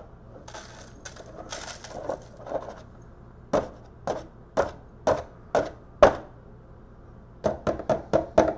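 Small metal pins and circuit-board scraps rattling as they are poured through a plastic funnel into a glass jar. Then a series of sharp knocks as the container is tapped to shake the last bits out: six knocks about half a second apart, then a quicker run of about six near the end.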